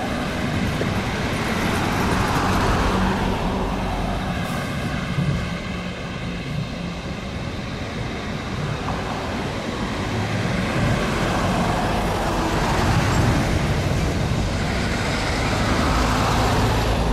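Freight train rolling past: a steady rumble with a low hum, swelling a little about three seconds in and again near the end.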